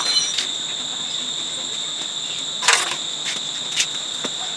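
Steady high-pitched insect drone, with a few short metallic clanks and knocks from work on a motorbike's rear wheel, the loudest a little past halfway.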